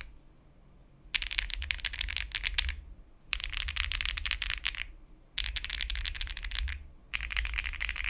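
Akko Mod007 v2 mechanical keyboard with lubed Akko CS Lavender Purple switches, a PC plate and muted PBT Cherry-profile keycaps, typed on fast: four runs of rapid keystrokes with short pauses between them.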